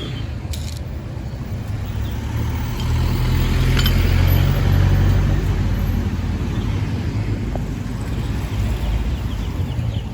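Steady rumble of a moving road vehicle with heavy wind noise on the microphone, swelling slightly a few seconds in.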